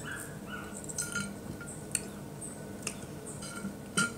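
A person drinking from a glass bottle: gulps with small swallowing clicks roughly once a second, and brief high squeaky tones in the first second.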